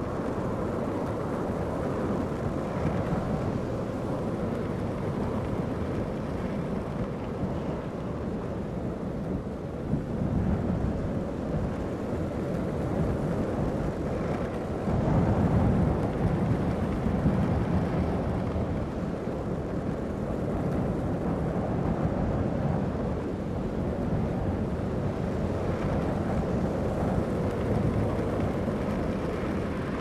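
Longboard wheels rolling over asphalt at high downhill speed: a steady low rushing noise that swells louder about ten seconds in and again from about fifteen to eighteen seconds in.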